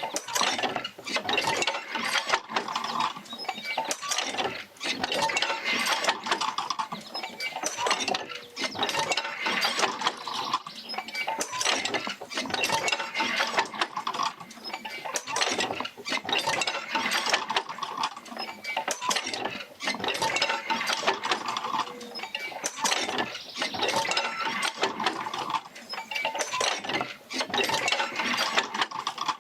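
Oil-field field wheel rocking back and forth as the Fitzgerald Rig drives it, with its jerker lines clanking, creaking and rattling in a steady, repeating mechanical cycle of knocks and clicks.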